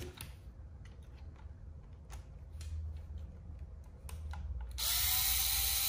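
Scattered light clicks of a hex driver and small screws being handled, then near the end a power hex driver whirs for about a second, backing a screw out of an RC truck's rear bumper. Its motor pitch rises as it spins up and falls as it stops.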